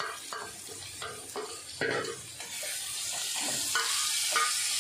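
Chopped onion frying in hot oil in a kadhai, with a spatula stirring and scraping in short strokes. The sizzle swells from about two seconds in and keeps getting louder.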